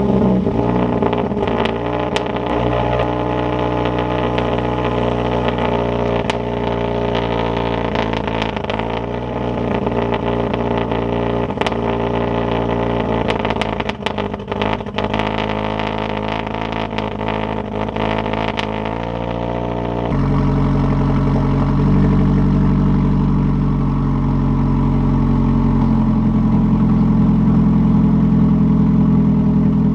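Mazdaspeed3's turbocharged 2.3-litre four-cylinder with a catless straight-pipe CPE exhaust, idling just after a cold start and cracking and popping irregularly. The owner puts this down to misfiring caused by the deleted VTC butterfly valves in the intake manifold. About two-thirds of the way through, the idle changes abruptly to a steadier note with fewer pops.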